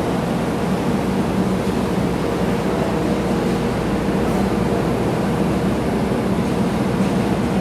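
Steady low drone of vehicle engines and ship machinery inside a ferry's enclosed vehicle deck, with a faint even hum: a truck drives across the deck while a coach waits at the ramp door with its engine running.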